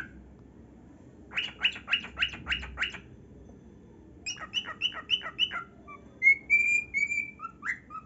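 Cockatiel calling: two quick runs of short, repeated chirps, then one longer whistle near the end.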